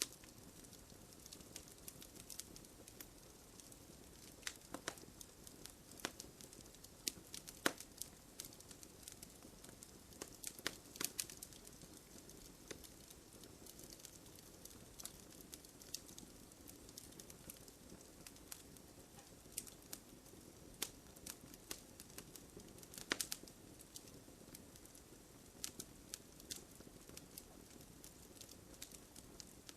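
Wood campfire crackling: irregular snaps and pops over a soft steady hiss, with a few louder snaps scattered through.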